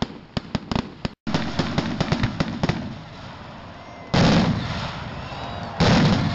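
Fireworks display: a quick string of sharp crackles from firecracker-type effects, then two heavy booms from aerial shells, about four seconds in and again near the end.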